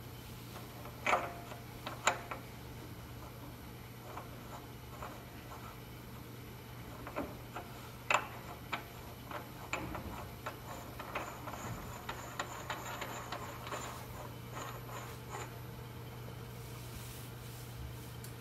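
Light metal clicks and ticks as a steel nose piece is handled and threaded by hand onto the quill of a Bridgeport mill head, with a few sharper clicks and a run of small quick ticks in the middle stretch, over a steady low hum.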